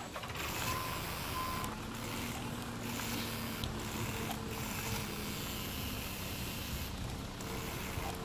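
Small DC motor of a homemade toy tractor running, a steady whirring hiss with brief dips, as its wheels spin in wet mud.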